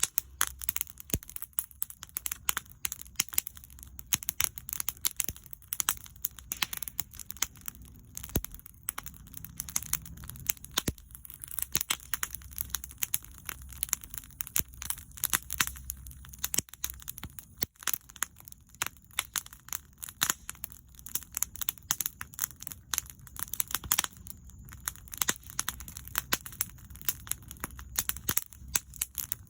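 Wood bonfire crackling, with frequent irregular pops and snaps over a low, steady rumble.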